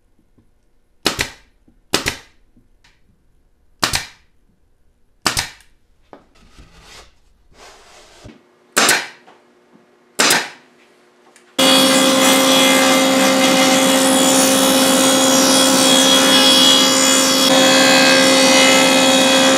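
Pneumatic nailer firing six separate shots into a drawer box, a second or more apart. About two-thirds of the way through, a loud machine starts and runs steadily with a low hum.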